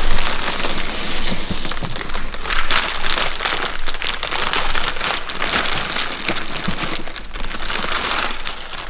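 Clear plastic bags and packing material crinkling and rustling as wrapped parts are handled and pulled out of a cardboard box. The crackling is continuous, loudest at the start and easing a little near the end.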